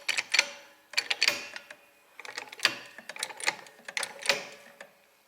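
Trolley jack being set and worked under a car: irregular metallic clicks and clanks with brief ringing, easing off about two seconds in before starting again.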